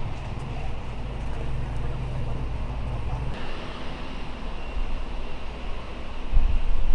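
Outdoor street ambience: a steady low rumble of road traffic, swelling to a louder low rumble near the end.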